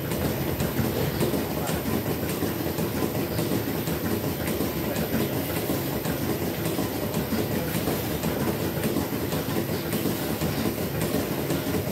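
Milking shed machinery running steadily during milking, a continuous rumble with light clattering throughout.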